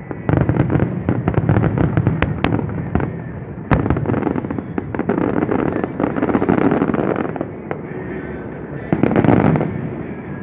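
Rapid barrage of aerial firework shells bursting, with dense crackling between the bangs and a louder volley about nine seconds in.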